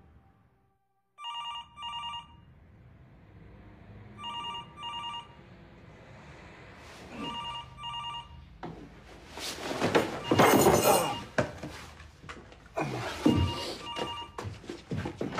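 Office desk telephone ringing in a double-ring pattern: two short electronic rings, repeated about every three seconds. About ten seconds in, loud rustling and a few knocks come over the ringing.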